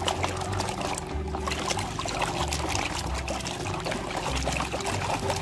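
Water pouring and trickling over a muddy toy as it is washed, with many small splashes and clicks throughout.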